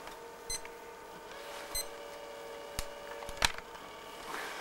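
A handheld pocket calculator giving a few short electronic beeps and clicks as its keys are pressed, showing that it works, over a faint steady hum.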